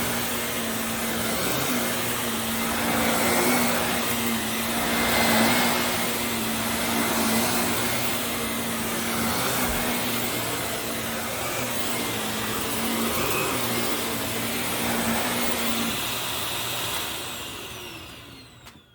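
Bissell compact vacuum cleaner running, with a steady motor hum under the rush of air, its level swelling and easing every couple of seconds. Near the end it is switched off and the motor winds down, its whine falling away to silence.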